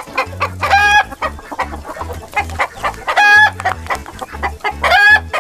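Hen clucking in a quick series, broken by three louder drawn-out squawks: one about a second in, one past three seconds, and one near the end.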